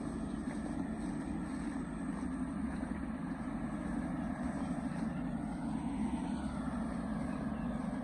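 Farm truck's 195 turbo engine running steadily, with no change in speed.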